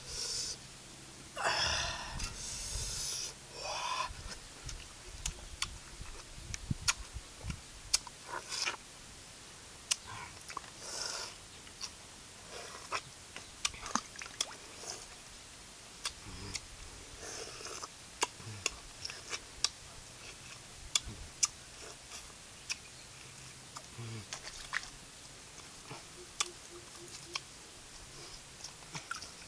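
A man peeling green citrus fruit with a machete and eating it: many sharp clicks and wet smacks, with short breathy slurps in between.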